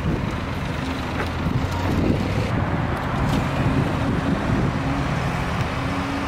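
A car driving: steady engine and road noise.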